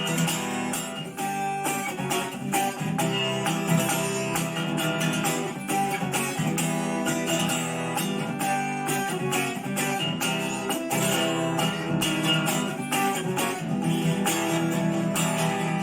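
Acoustic guitar strummed in a steady rhythm: an instrumental passage between sung verses.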